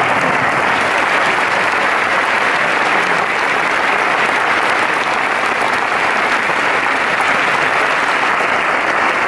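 A large concert-hall audience applauding steadily, a dense wash of clapping at an even level.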